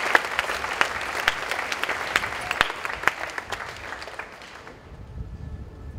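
A hall full of schoolgirls applauding, dense clapping that thins out and dies away about four seconds in, leaving a faint low rumble.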